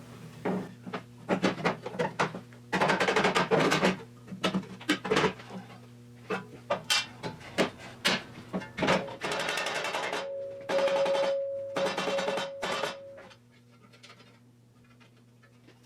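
Background music with steady low notes and many sharp percussive hits, dropping to a low level for the last two seconds.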